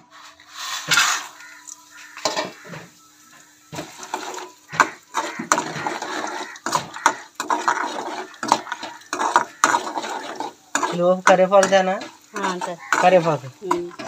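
Peanuts and chana dal tipped into an aluminium kadai and stirred with a metal spatula: repeated clinks and scrapes of metal on metal. Near the end a loud pitched call sounds for a couple of seconds.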